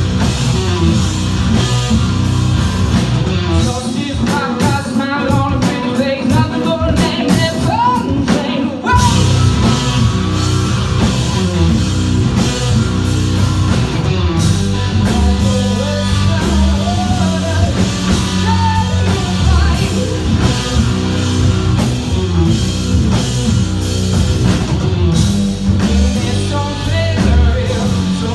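Live rock band playing with singing, electric guitars, bass and drum kit, heard as a loud club recording. The band thins out for a few seconds under a sung line, then comes back in full about nine seconds in.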